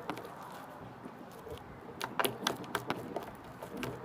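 Bead-filled slime being squeezed and worked by hand, giving a cluster of quick crackly clicks and pops about two seconds in.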